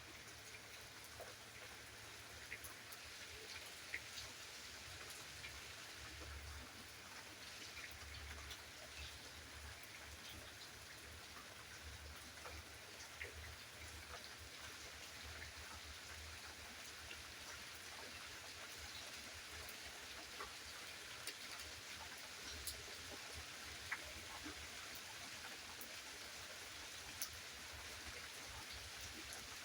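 Rain falling steadily, with scattered single drops ticking sharply above the hiss.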